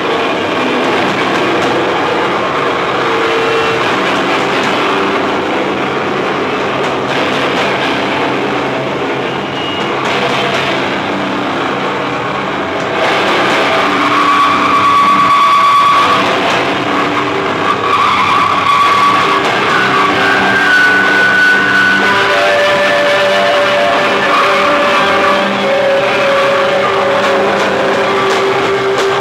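Live rock band playing loud, heavily distorted guitars through amplifiers, a dense wall of sound with long held notes ringing over it. It gets fuller and louder about halfway through.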